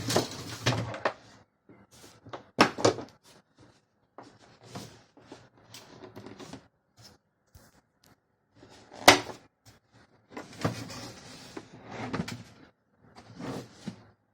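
Product packaging being handled during unboxing: irregular scraping, rustling and knocks, with two sharp clacks, one early on the box and one about two-thirds of the way through.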